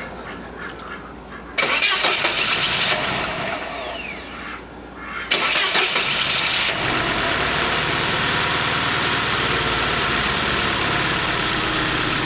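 Car engine starting and running, dipping briefly about four seconds in, then settling into a steady idle. It is running again after a blown fuse and the distributor's Hall sensor were replaced.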